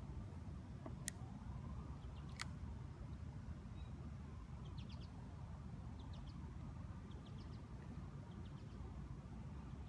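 A bird repeats a faint, high, short chirp in quick little groups about once a second, over a steady low rumble. Two sharp clicks come early, about a second apart.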